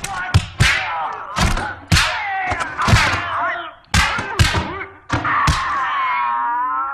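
Kung fu film fight sound effects: a rapid string of sharp punch and kick impacts mixed with loud, high shouted battle cries, ending in one long wavering cry near the end.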